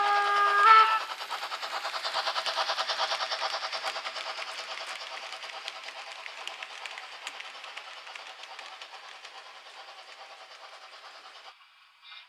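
H0 model class 50 steam locomotive with its freight train: the whistle blows and stops about a second in, then a rhythmic running sound of the train that slowly fades as it moves away, cutting off near the end.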